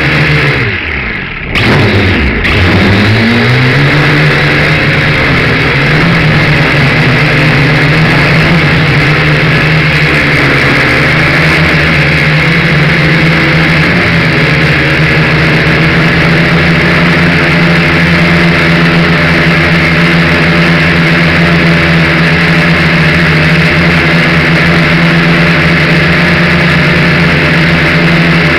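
Quadcopter's electric motors and propellers whining, heard loud from the drone's own onboard camera. About a second in, the pitch falls and the sound dips, then it climbs back and holds steady with small wavers in pitch.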